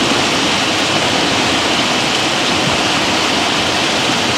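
Bacon-wrapped cheese frying on a hot propane griddle, a steady loud sizzle.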